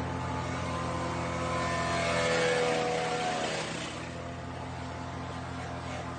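Forestwest BM11062 150 mm wood chipper running steadily, chipping palm fronds. It gets louder about two seconds in, with shifting higher tones for a second or so, then settles back.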